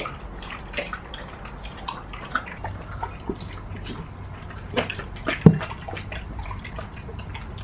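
Two corgis eating dry kibble from their bowls: irregular crunching and sharp clicks of kibble and teeth against the bowls, the loudest click about five and a half seconds in, over a faint steady low hum.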